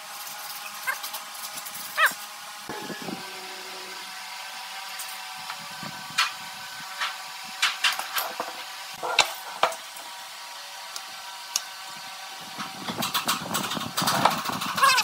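A steady mechanical hum with scattered sharp knocks and clicks, a short squeak about two seconds in, and a busier run of knocks and scraping near the end.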